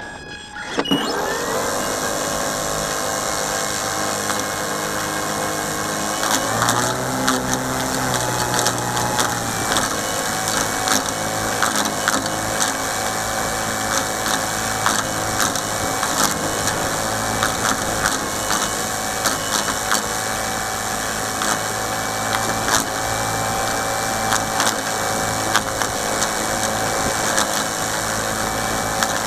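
A small boat's motor starts about a second in, rising quickly in pitch, then runs steadily. Its pitch shifts and deepens for a few seconds about a quarter of the way through. Sharp knocks are scattered throughout.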